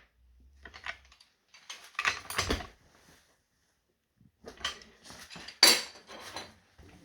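Metal clinks and clanks of spanners and bolts being handled as a scooter's brake caliper is bolted back onto the wheel, in several short bursts, with the sharpest clank about five and a half seconds in.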